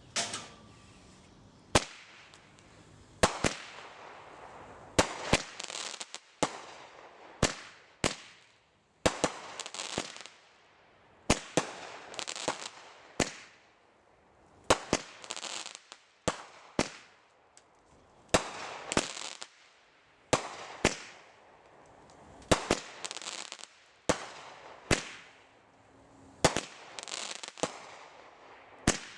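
A consumer firework cake firing shot after shot: a sharp bang roughly every second, each followed by a crackling hiss as the burst fizzles out.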